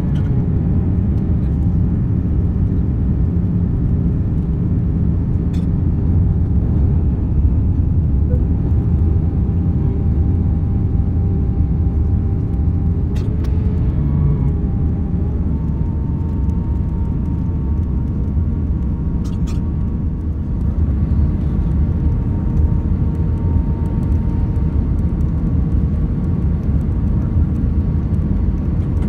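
Airliner cabin noise on final approach with flaps extended: a steady rumble of jet engines and rushing air, with a faint engine whine that steps up slightly in pitch about halfway through as thrust changes. A few faint clicks come over it.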